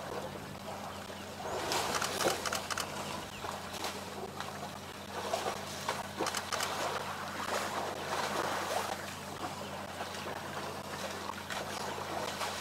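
Elephant herd drinking and wading in a waterhole: water splashing and sloshing on and off, with clusters of sharp clicks, over a steady low hum.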